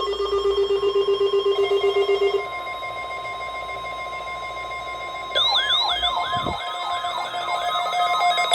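Electronic alarm tones. A loud, rapidly pulsing low tone lasts about two and a half seconds, then quieter steady tones follow. About five seconds in, a siren-like warble starts, rising and falling about three times a second.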